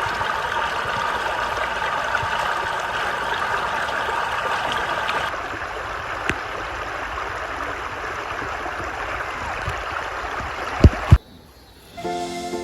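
River water flowing over rocks, a steady babbling rush. Just before the end, two sharp knocks in quick succession.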